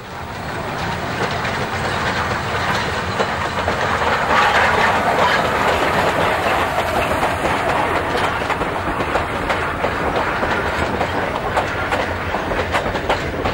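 Metre-gauge steam-hauled passenger train passing close by: a steady rush of noise as the coaches go past, with their wheels clattering over the rail joints. The sound fades in at the start.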